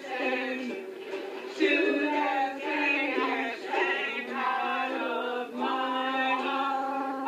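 A small group of men and women singing a song together, accompanied by a strummed ukulele.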